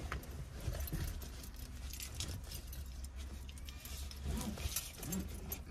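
A car seat belt being pulled and fastened around a soft pet carrier: its metal buckle tongue and the carrier's metal zip pulls jingle, with scattered clicks and rustling over a low steady rumble.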